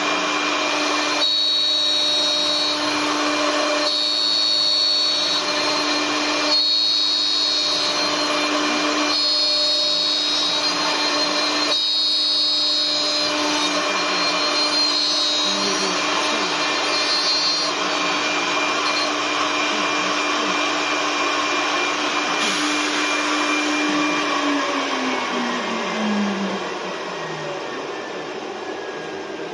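CNC wood turning lathe running and cutting: a steady machine noise with a low hum, and a higher whine that comes and goes about every two and a half seconds through the first half. Near the end the hum falls in pitch as the spindle slows down.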